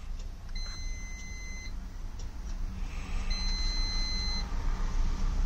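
Digital multimeter's continuity buzzer beeping twice, each steady beep about a second long, as the probes are held on points of a TV motherboard. The beeps signal a near-zero-resistance path between the probed points. A steady low hum runs underneath.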